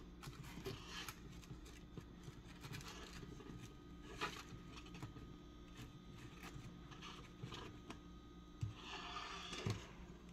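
Faint handling noise from a handheld phone being moved around: scattered light clicks and short scraping rustles, with a louder rustle about nine seconds in.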